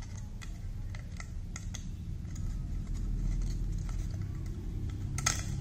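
Light clicks and taps of laser-cut bird house parts being handled as an interlocking lock piece is pressed into place, with a sharper pair of clicks about five seconds in. A steady low hum runs underneath.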